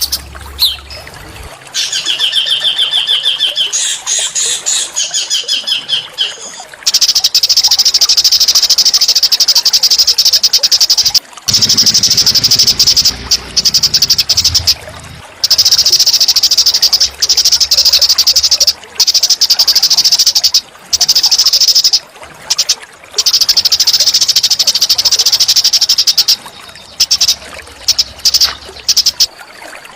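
Recorded song of a small songbird used as training song for magpie-robins. A fast trill of repeated high notes comes first, followed by long, loud, high-pitched buzzing rolls lasting several seconds each, separated by brief breaks.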